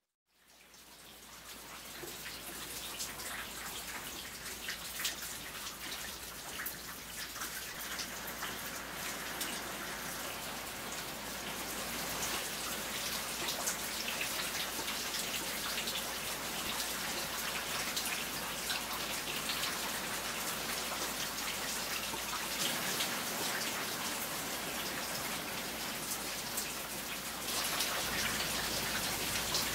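Steady rain falling, with individual drops heard close by. It fades in over the first couple of seconds and gets a little louder near the end.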